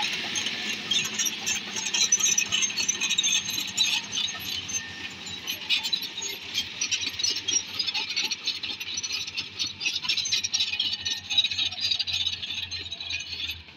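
Bulldozer at work: a dense, continuous rattling clatter over the low steady hum of its engine.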